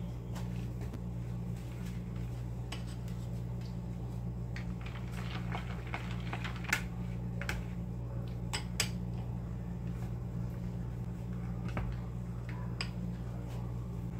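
Spatula stirring and scraping in a plastic mixing bowl, with scattered light clicks and taps that cluster in the middle, over a steady low hum.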